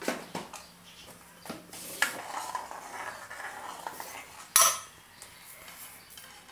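Steel ladle stirring thick corn soup in a metal kadai, scraping and clinking against the pan, with a louder clink about four and a half seconds in.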